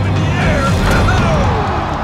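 Loud arena crowd yelling and screaming over a film's music score, many voices overlapping above a dense low rumble.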